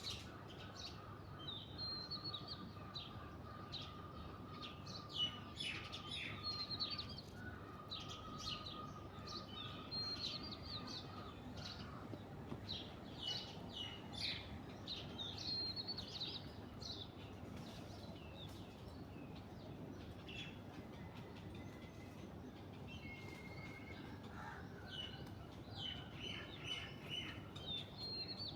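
Birds chirping outdoors: many short, high chirps and brief calls throughout, with a steady thin tone underneath for roughly the first twelve seconds.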